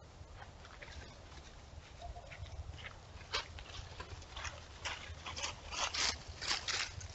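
Dry fallen leaves rustling and crunching under an animal's footsteps, in short irregular crackles that come more often and louder toward the end, over a low steady hum.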